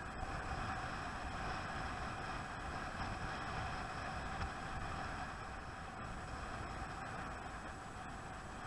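Boat engine running steadily: one constant droning tone over an even rushing noise.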